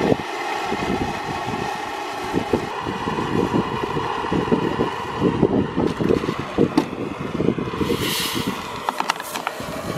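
Two handheld propane torches burning with a steady, fluttering flame roar as they heat a knife blade. About eight seconds in comes a brief hiss as the hot knife cuts into the pressurized Diet Coke bottle with Mentos inside and gas escapes, followed by a few sharp clicks.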